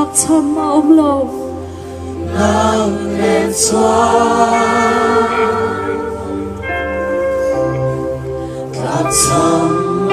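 A group singing a Christian worship song together, led by a woman's voice through a microphone, with long held notes.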